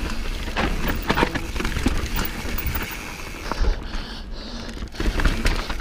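Transition Patrol carbon mountain bike riding fast down a dirt trail: tyres on dirt and roots with the bike rattling and clattering over the bumps, easing a little just past the middle.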